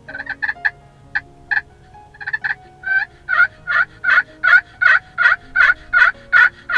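Turkey calling on a pot call worked with a wooden striker. A few scattered short clucks come first, then from about three seconds in a steady, loud run of yelps, about three a second, each note falling off at its end.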